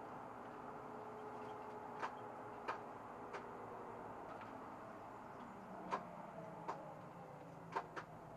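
SOR NB 12 city bus running, a low steady drone with a slight shift in pitch about two-thirds of the way through. Over it come sharp single clicks in short runs about two-thirds of a second apart, the first about two seconds in.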